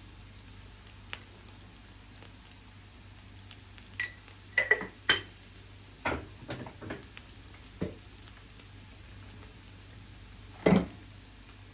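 Dishes and cutlery being handled: a few ringing clinks about four to five seconds in, then several duller knocks, and one louder knock near the end.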